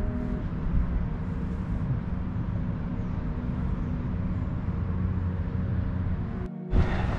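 Steady low rumble with a faint hum aboard a small fishing boat on the water. About six and a half seconds in it cuts off abruptly, and a short, louder burst of noise follows.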